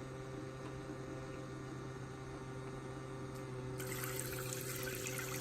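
Water running through a portable propane tankless water heater and out of its outlet over a steady low hum, with no burner lit because the igniter failed to spark. About four seconds in, a louder hiss of water joins.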